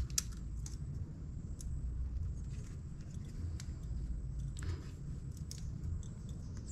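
Scattered light metallic clicks from snap-ring pliers seating the snap ring that holds the clutch slave cylinder's oil seal, over a low steady hum.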